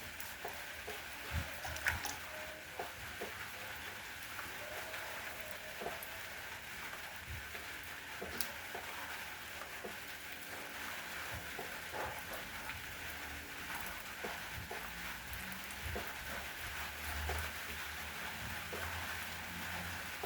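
Steady rain falling: an even hiss with many individual drops ticking irregularly on a surface close by.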